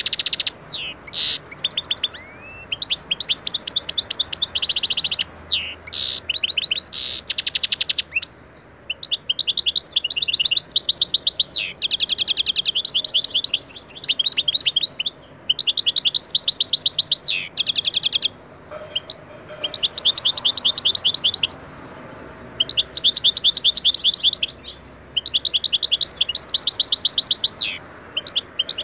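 European goldfinch singing: long runs of fast twittering trills and chirps, broken by short pauses every few seconds, with a few quick rising whistles near the start.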